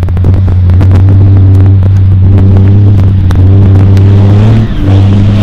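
Renault Dakar rally truck's 1050-horsepower diesel engine running hard at a steady, deep pitch, dropping off briefly shortly before the end and then picking up again.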